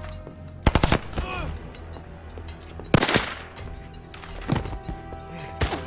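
Gunfire in a night-time shootout: several rapid volleys of shots, about a second in, about three seconds in, and twice more near the end, over a soundtrack of sustained music.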